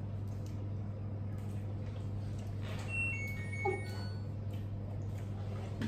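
Steady low hum of a running household appliance, with a few short high electronic beeps about halfway through.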